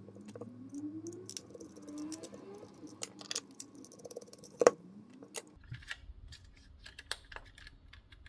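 Micro screwdriver undoing the small Phillips screws in the plastic shell of a Microsoft Wireless Mobile Mouse 3500: light clicks, taps and scrapes of the driver and the plastic being handled, with one sharper click about halfway.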